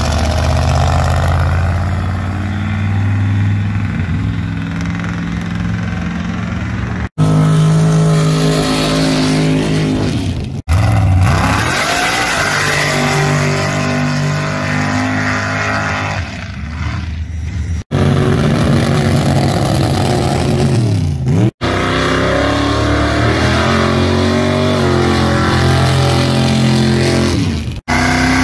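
Loud engines of sand-drag pickup trucks revving and accelerating hard down a sand track, heard as several short runs cut one after another. Each engine note climbs and then drops away.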